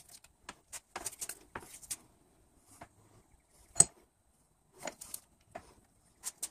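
Bench vise being worked on a hydraulic timing-belt auto-tensioner: a run of short, light metallic clicks and knocks, with one sharp click just before four seconds in.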